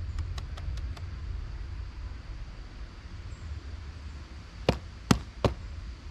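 Hand-held kitchen tools knocking during onion preparation with a small slicer: a quick run of faint ticks in the first second, then three loud sharp knocks close together near the end. A steady low rumble runs underneath.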